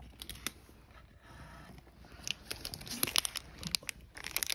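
Plastic cat-treat stick pouch crinkling as it is handled and torn open, a few isolated crackles at first, then a dense run of sharp crackles in the second half.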